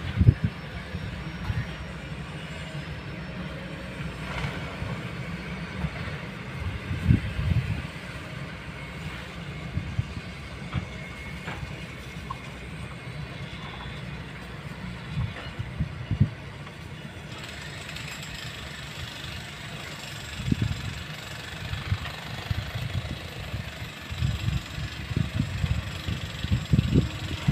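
Diesel engine of a long-reach Kobelco excavator running as it digs, heard from a distance, with uneven low rumbles that come and go, more of them near the end.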